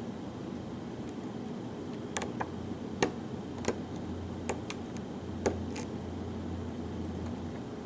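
Small sharp clicks of a lock pick working the pin stack of a challenge lock under tension, about seven irregular clicks as pins are lifted and set. A steady low hum runs underneath.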